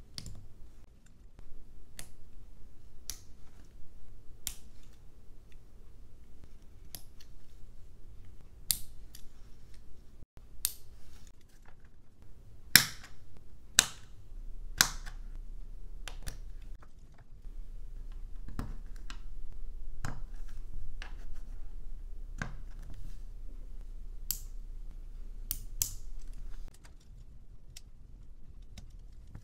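LEGO Technic plastic pieces clicking together as pins are pushed into beams and parts are snapped on by hand: irregular sharp clicks, with a few louder snaps near the middle.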